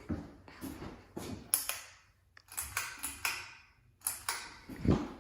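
Ceiling fan pull-chain switch and chain clicking and rattling in a run of irregular light clicks and taps, as the fan is switched on.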